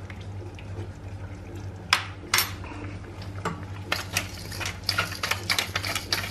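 Two sharp clinks about two seconds in, then a hand pepper mill grinding over a pan of cream sauce from about four seconds in, a rapid run of small clicks.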